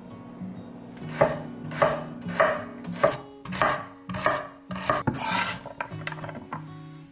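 Knife chopping on a cutting board: about eight slow, evenly spaced strokes, with one longer stroke about five seconds in, over soft acoustic guitar background music.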